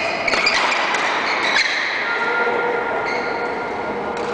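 Badminton rally in an echoing sports hall: rackets strike the shuttlecock with a few sharp hits in the first couple of seconds, over the players' footwork on the court floor.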